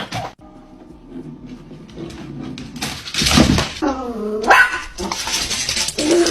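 A dog vocalising: a low drawn-out growl, then loud barks about three and four and a half seconds in, with a falling whine between them.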